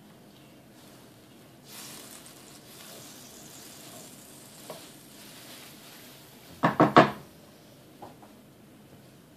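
Wooden spoon stirring thin stock in a nonstick frying pan with a faint scraping swish. About two-thirds of the way through come four quick, loud knocks as the spoon strikes the pan.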